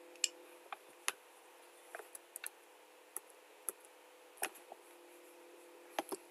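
Quiet, scattered clicks of a computer mouse and keyboard, about a dozen at irregular intervals, over a faint steady hum.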